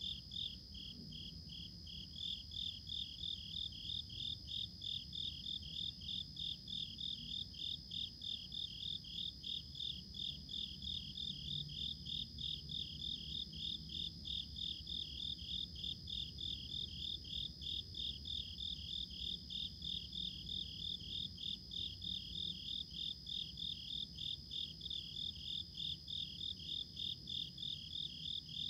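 Night-singing insects, likely crickets or katydids: a rapid, even chirping layered over a steady high-pitched trill.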